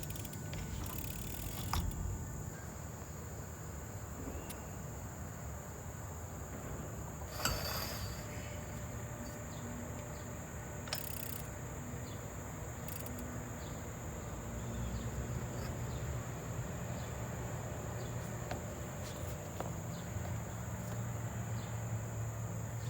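Insects keep up one steady high-pitched drone over a low outdoor rumble. A few short sharp clicks and knocks break in, the loudest about seven and a half seconds in.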